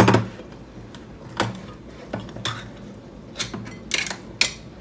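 A metal spoon clinking and scraping against a container as tomato soup is spooned out: a loud knock at the start, then a string of short, sharp clinks.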